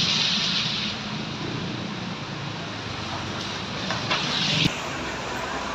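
Rainy street traffic: a vehicle engine running close by over a steady hiss of rain. The engine hum cuts off suddenly about three-quarters of the way through.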